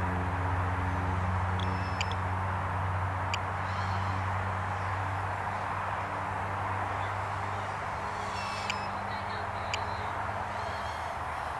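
Steady outdoor background hiss with a low hum that fades away over the first few seconds. A few short high bird chirps come about two seconds in, again near three seconds, and twice more near the end.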